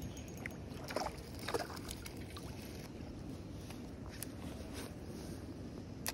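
Water sloshing and splashing, with two sharper splashes about a second in.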